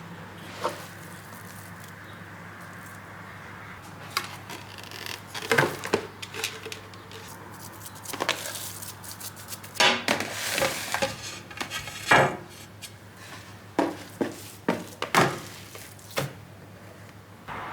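Kitchen handling sounds: irregular knocks and clinks of dishes and utensils being set down and moved, over a faint steady hum.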